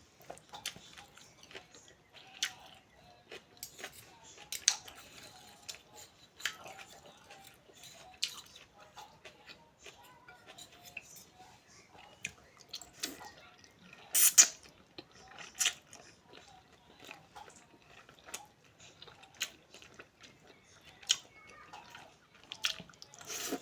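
Irregular small clicks and taps, the loudest about 14 seconds in.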